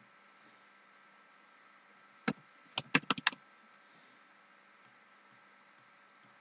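Computer keyboard keystrokes: a single key press about two seconds in, then a quick run of about five key presses half a second later, entering a short number. A faint steady hum lies underneath.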